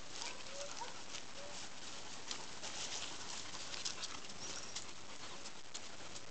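Crackling and rustling in grass and dry leaves, with a few short high chirps in the first second and a half.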